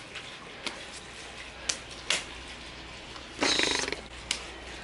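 Hands slapping and clapping together in a quick multi-part handshake: a few sharp, separate slaps, with a short rustling burst a little past the middle.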